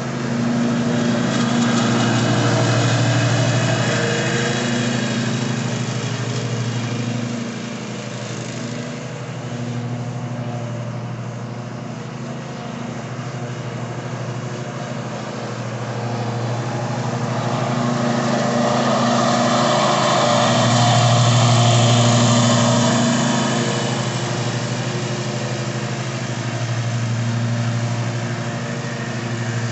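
Ariens Ikon XD zero-turn mower's Kawasaki FR691V V-twin engine running steadily at mowing speed with the deck cutting grass. It grows louder and fainter as the mower passes near and turns away, loudest near the start and again about two-thirds of the way through.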